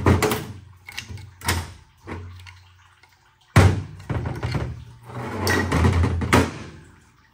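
Metal knocks and clunks from hand tools and transmission parts being worked on a bench: several separate hits, then a longer, louder run of clattering about five seconds in.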